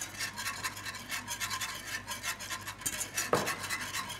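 Fast, rhythmic scraping strokes of a utensil mixing strawberry jam with water to make the soaking for a sponge cake, with a single knock a little after three seconds.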